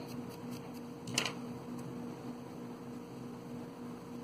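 Steady electrical hum, with a single faint click about a second in.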